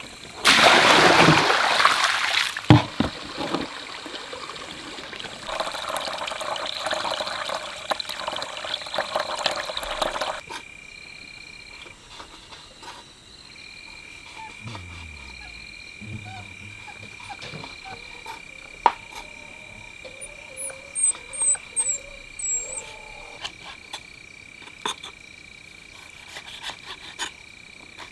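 Water splashing and sloshing in a plastic basin, then a steady rushing until about ten seconds in. After that, frogs croak at night over a steady high-pitched insect drone, and a kitchen knife chops raw pork on a plastic cutting board in sharp, irregular knocks through the second half.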